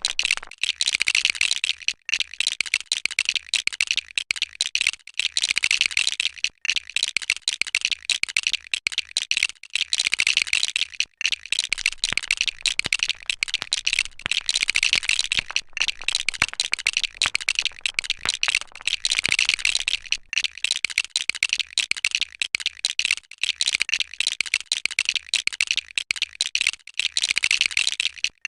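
Plastic LEGO bricks rattling and clicking together in a dense, continuous clatter, broken by a few brief pauses.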